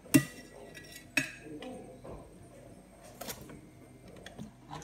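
Spatula knocking against the foil-lined baking tray: two sharp knocks about a second apart, then a few fainter clinks.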